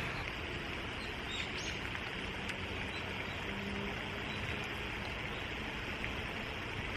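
Steady outdoor rushing noise, with a couple of faint high chirps about a second and a half in.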